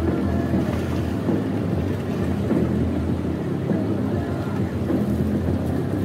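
River rapids rushing steadily.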